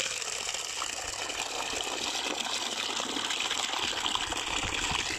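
A strong jet of water from a 3D-printed centrifugal pump gushing and splashing steadily into a plastic bucket as it fills.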